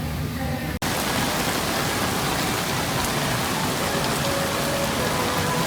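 Heavy rain pouring steadily, an even hiss that starts abruptly just under a second in, right after a brief cut.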